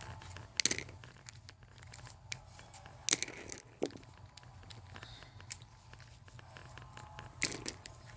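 Close handling noise: scattered crackles and rustles with three louder sharp clicks spread through, over a steady low hum.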